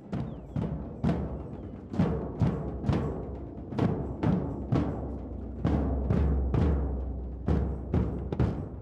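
Drums of a pasacalle procession band beating a steady marching rhythm, a little under three strikes a second, over a low hum.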